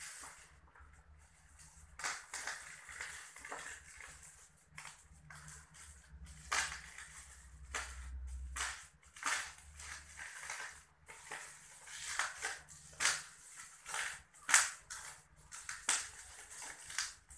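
Black plastic parcel wrapping crinkling and crackling in irregular bursts as it is handled and pulled open by hand.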